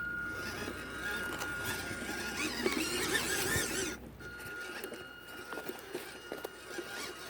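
WPL B36 RC truck's electric motor and gearbox whining at a steady pitch while its tyres churn through mud. About four seconds in, the whine cuts out briefly and the churning stops, then the whine resumes more quietly.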